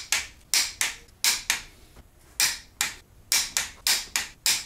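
A torque wrench ratcheting on the cylinder head bolts during the final tightening pass to 80 foot-pounds. It makes a run of sharp clicks at an uneven pace, about two or three a second.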